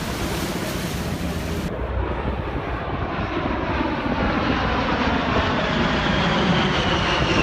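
An aircraft engine running overhead, a whine slowly falling in pitch over a steady low rumble.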